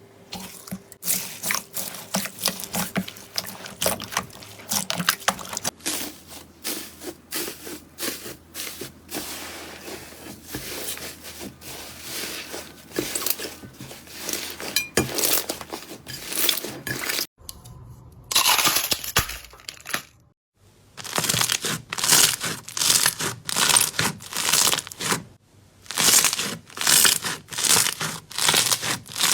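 Slime being worked by hand close to the microphone, giving dense crackling and crunching pops and clicks, with two short breaks about two-thirds of the way through.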